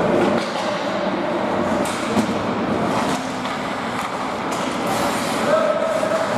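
Ice hockey play on a rink: skate blades scraping and carving the ice in a steady rush, with a few sharp stick-and-puck clicks.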